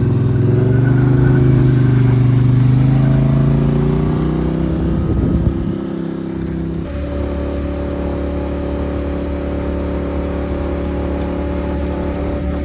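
Motor vehicle engine running while driving, its pitch easing down a little over the first few seconds, then a steady, lower drone from about seven seconds in.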